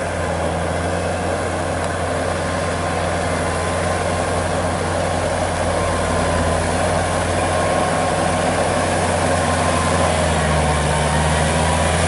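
Kubota L4508 tractor's 45-horsepower four-cylinder diesel engine running steadily under load as it pulls through a flooded rice paddy on long iron cage wheels. It grows gradually louder as the tractor approaches.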